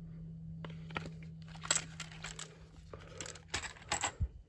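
Ammunition boxes and their packaging being handled: rustling with several sharp clicks and knocks. A low steady hum runs underneath and stops about three and a half seconds in.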